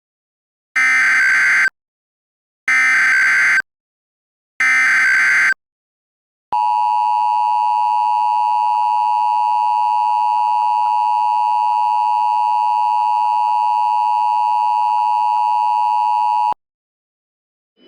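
Emergency Alert System tones opening a new alert. First come three short electronic SAME header data bursts about a second apart. Then the EAS attention signal follows: a steady two-tone electronic drone held for about ten seconds that cuts off abruptly.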